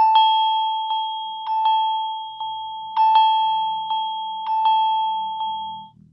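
Samsung Galaxy ringtone (One UI 4): a single bell-like mallet note struck over and over in a short repeating pattern with quick double strikes, each strike ringing on, over a faint low hum. It stops just before the end.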